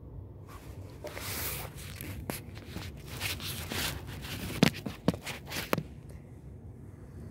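Fabric rustling and handling noise close to a phone's microphone, with three sharp clicks or knocks a little past halfway.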